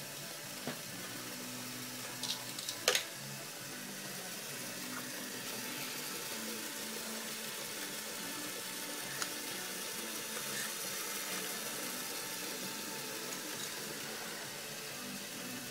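Lego Power Functions motors driving a Lego ski lift and conveyor, running as a steady whirring hiss with the plastic parts rattling. A few sharp plastic clicks come about two to three seconds in, and one more near the middle.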